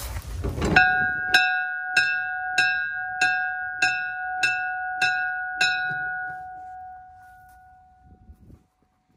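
Locomotive bell on ex-Santa Fe 95, swung by hand so the clapper strikes nine times about every 0.6 s. It then rings on and dies away over about two seconds. A short rustling noise comes before the first strike.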